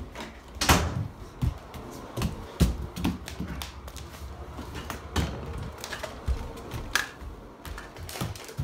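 Irregular knocks and clicks, about one every second or less, with rustling between them: footsteps and the handling of a handheld phone carried across a hardwood floor.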